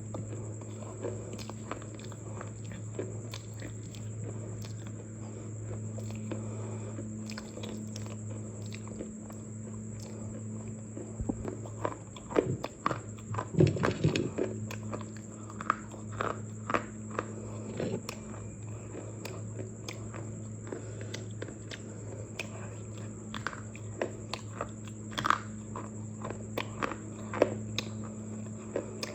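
Someone biting and chewing something crunchy: a loud run of crunches about halfway through, then scattered single crunches, over a steady low hum.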